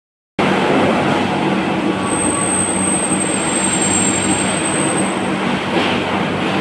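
Heavy roll-turning lathe machining a steel rolling-mill roll: a loud, steady mechanical drone with a low hum, and a thin high whine from about two to five seconds in.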